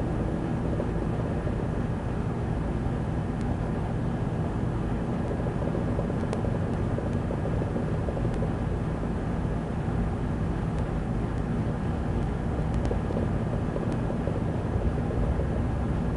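Steady rumble of a heavy breeze buffeting the microphone, with no breaks or changes.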